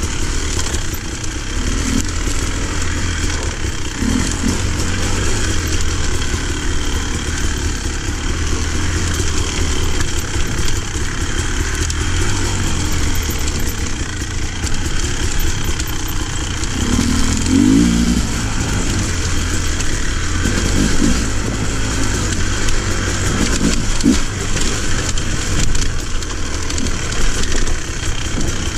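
Off-road motorcycle engine running as the bike rides a rough dirt singletrack, its pitch rising and falling with the throttle, most clearly about two-thirds of the way through.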